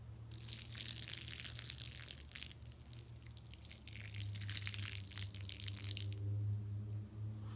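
Crackling, rustling hiss as a carpet stain is wetted with water and Nature's Miracle enzyme cleaner. It runs for about six seconds, then stops.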